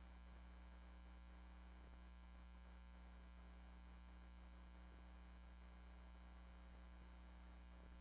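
Near silence, with only a faint, steady low electrical hum.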